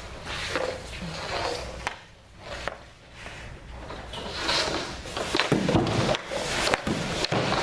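Hockey pucks being shot and knocking off a goalie's pads, stick and the boards, with the scrape of skates and pads across the rink surface. The knocks are sharp and come one after another, louder in the second half.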